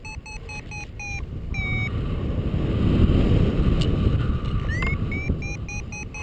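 Paraglider's variometer beeping about four times a second, the climb signal in rising air; it stops about a second in and comes back near the end after a short rising tone. Wind rushing over the microphone underneath, strongest around the middle.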